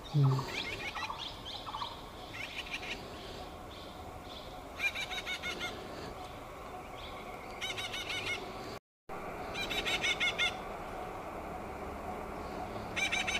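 Red-breasted parakeet chicks calling from their nest hole in a tree: about five short bursts of rapid, chattering notes, a few seconds apart.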